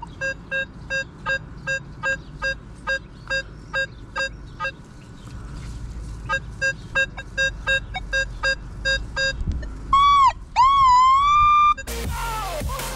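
Nokta Makro Legend metal detector giving a regular run of short, low electronic beeps, about three a second, with a short pause partway through. About ten seconds in, a louder, higher tone sounds for about two seconds, swooping down and back up in pitch. Near the end a louder, noisier sound begins.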